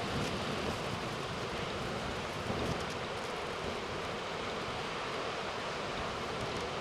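Hurricane-driven surf and wind: a steady, unbroken rush of waves and gusting wind.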